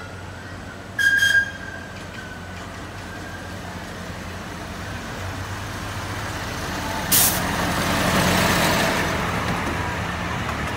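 Miniature park train running on its track, with a brief high-pitched tone about a second in. About seven seconds in, a locomotive passing on the next track gives a sudden sharp hiss, followed by a swelling rush of noise as it goes by.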